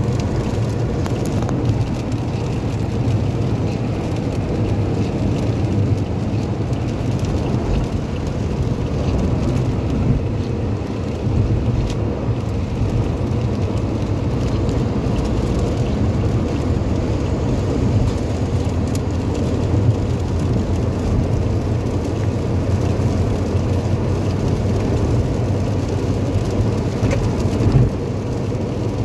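Steady low road and engine noise inside a car's cabin at highway speed, with rain hitting the windscreen and body and the tyres running on a wet road.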